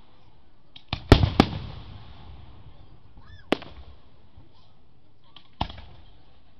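Aerial firework shells bursting. A quick cluster of three sharp booms about a second in is the loudest, each trailing off in a rumble, and single bangs follow near the middle and near the end.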